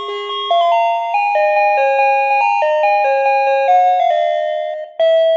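DC battery-powered water tank alarm playing an electronic doorbell-style melody of short stepped notes, the tune breaking off and starting again about five seconds in. It rings when the water reaches the sensor, the signal that the tank is full.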